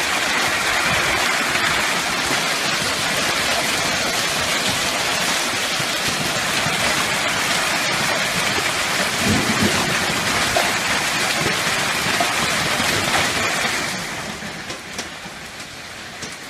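Heavy hail, quarter- to half-dollar-size stones, pelting the ground and nearby structures in a dense, loud, steady roar with rain mixed in. There is a low rumble about nine seconds in, and the roar eases off noticeably about fourteen seconds in.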